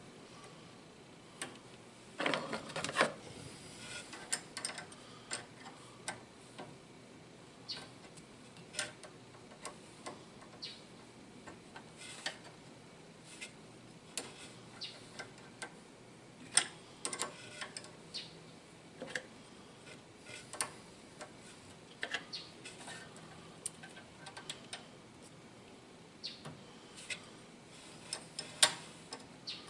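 Irregular light metallic clicks and taps of hand tools working a brake-line fitting against a brass tee, a sharper cluster about two seconds in. The fitting won't start its threads.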